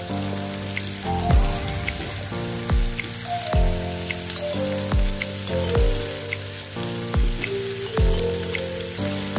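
Background music with a steady drum beat, over the sizzle of diced bell peppers and onion sautéing in a frying pan as they are stirred with a wooden spatula.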